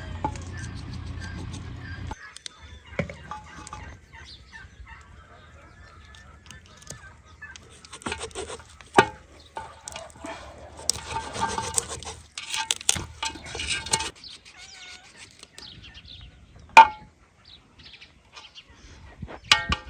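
Farmyard fowl calling amid scattered knocks and clattering. A low hum cuts off about two seconds in, and a single sharp knock comes near the end.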